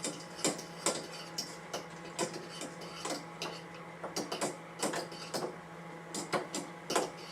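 Wire pasta ladle stirring thick, heavy stuffing mix in a pot, knocking and scraping against the pot in irregular clicks about two or three a second.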